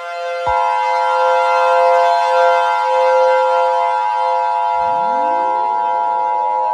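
Civil-defense-style emergency siren sound: a steady chord of held tones, with higher tones cutting in about half a second in. Near the end a set of rising sweeps begins, like a siren winding up.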